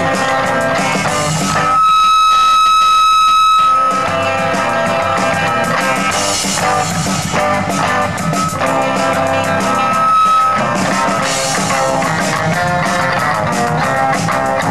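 Live rock band playing an instrumental passage on electric guitars and drum kit. About two seconds in, the band drops out under a single high held note for about two seconds, then the full band comes back in; the same held note returns briefly later.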